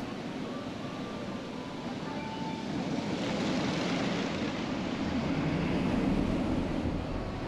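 VelociCoaster train rushing along its steel track on a test run, a rumbling roar that swells about three seconds in and fades again near the end.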